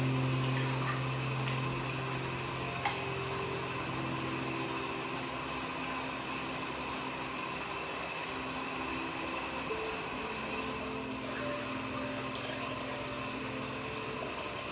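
Steady rush of running water, with soft background music of long held notes over it.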